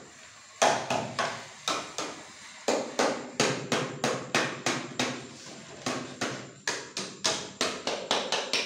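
Rapid repeated knocks struck on a child's toy tricycle, about three a second, starting about half a second in, each with a short ringing tail.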